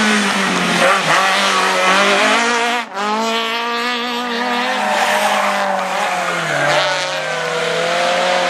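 Rally car engines revving hard through a tight bend. In the first few seconds a hatchback rally car's engine rises and falls in pitch. After a cut about three seconds in, a Lancia 037's supercharged four-cylinder pulls hard and then steps down in pitch about six and a half seconds in as it lifts or shifts.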